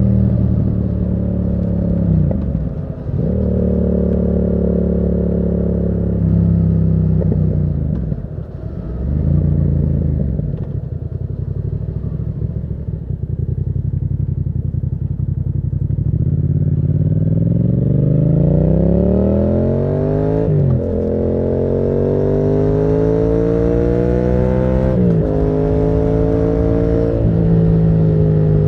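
Yamaha MT-07's parallel-twin engine through a Termignoni exhaust, under way. It holds steady revs with two short drops in the first third, then accelerates from about halfway, the revs climbing and dropping sharply twice as it shifts up through the gears.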